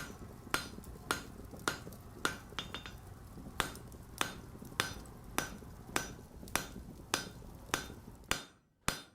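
Blacksmith's hammer striking on an anvil in a steady rhythm, just under two blows a second, each blow ringing. There is a brief pause a little over two seconds in, and near the end the background noise falls away.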